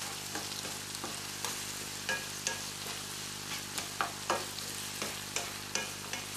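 Sliced onions and carrots sizzling in hot oil in a nonstick frying pan. A spatula stirs them, scraping and tapping against the pan every so often.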